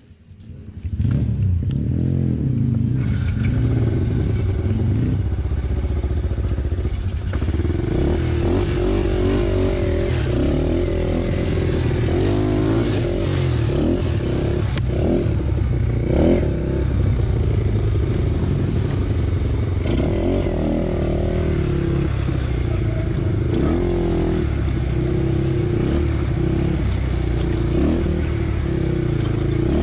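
Dirt bike engine running and revving up and down, starting about a second in and going on steadily, with some clatter.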